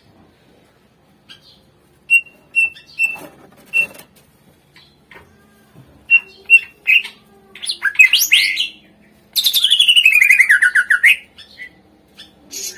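Cucak ijo (green leafbird) singing: a few sharp, evenly pitched chirps about two seconds in, then quicker phrases. Near the end comes the loudest part, a fast rattling trill lasting about two seconds that falls steadily in pitch.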